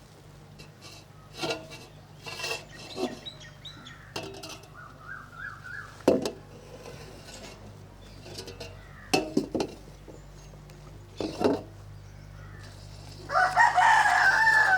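Chickens calling: a wavering call about four seconds in, and a louder call of over a second near the end. Between them come a few sharp clatters of dishes or metal utensils.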